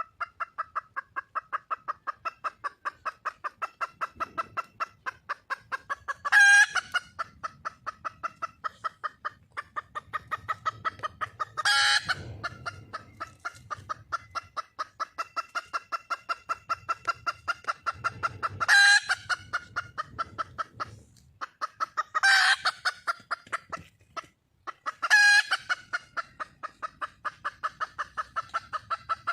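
Red junglefowl hen calling: a fast, even run of clucks, about three or four a second, broken five times by a louder, shriller call.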